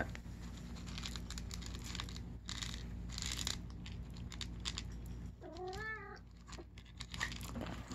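Dry kibble rattling in a plastic cup and pattering out onto carpet in many small clicks, then a cat meows once about six seconds in.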